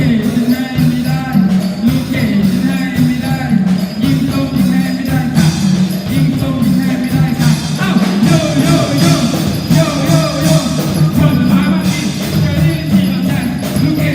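Upbeat music with a steady beat, a low repeating melody and jingling percussion.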